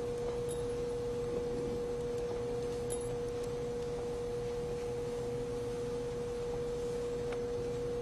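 A steady, pure tone at a single mid pitch, held without change over a faint hiss.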